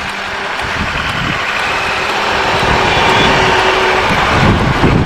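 Sport motorcycle's engine running under way, getting steadily louder as the bike pulls along the road, with wind rushing over the microphone.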